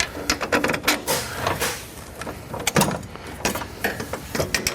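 Metal suspension parts knocking and scraping as a sway bar and suspension arm are forced into position under the car: a string of irregular clunks and clicks.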